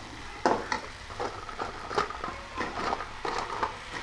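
Metal slotted spoon scraping and knocking against an aluminium kadai in short, irregular strokes as fried cabbage Manchurian balls are tossed in the sauce over a high flame, with a faint sizzle underneath.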